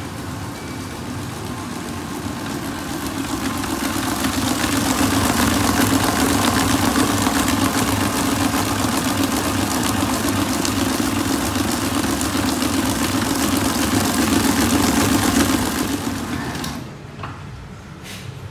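Commercial planetary stand mixer running, its wire whisk beating cake batter in a steel bowl: a steady motor hum with whisking noise, louder for most of the time, that stops abruptly near the end.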